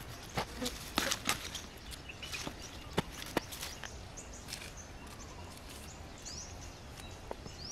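Irregular dry crackles and snaps of leafy plant stems and dry leaf litter being handled, thickest in the first few seconds and sparser after. A few faint bird chirps come in about halfway through.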